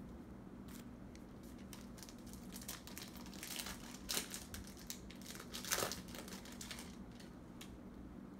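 Trading-card pack wrapper being torn open and crinkled by hand: scattered crackles build into a dense stretch of crinkling across the middle, with two louder rips.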